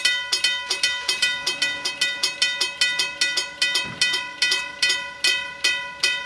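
Railroad grade crossing warning bell ringing steadily, about three strikes a second, each strike ringing on briefly; it signals that a train is approaching the crossing.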